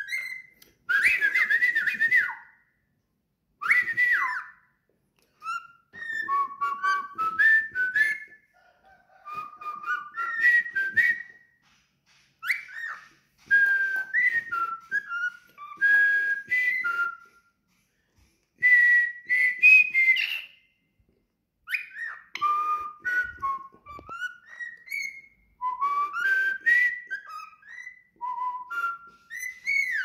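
Cockatiel whistling its song: phrases of warbling whistles that glide up and down in pitch, a second or two each with short pauses between, with some harsher chirps mixed in.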